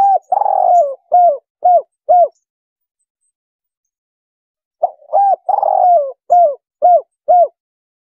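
Spotted dove (tekukur) cooing its 'kuk 3' call, twice about five seconds apart. Each phrase is a short note, a longer coo that slides down in pitch, then three short clipped 'kuk' notes.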